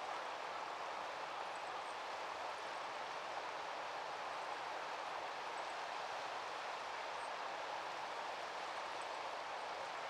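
Steady outdoor background noise: an even, unchanging rushing, with a few faint, very high chirps scattered through it.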